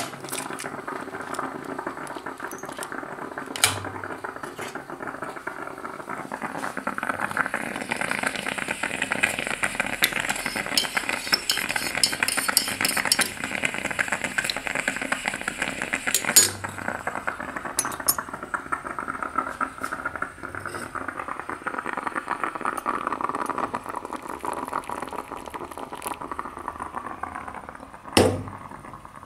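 Stovetop moka pot sputtering and gurgling as the coffee rises into the upper chamber, swelling midway and then easing off. A few sharp clinks of a metal spoon and cup, the loudest near the end.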